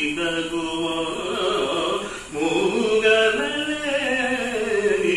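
A man singing a devotional song solo in long melodic phrases, with held notes that waver in pitch. He pauses briefly about two seconds in, and the last phrase slides downward.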